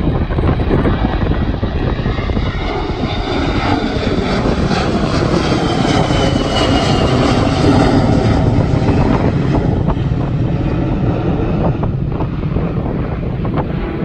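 Airbus A321 jet airliner climbing out after take-off, its twin turbofan engines at take-off power: a steady roar that swells to its loudest around the middle, with a high whine falling in pitch as it passes overhead, then fades as the jet climbs away.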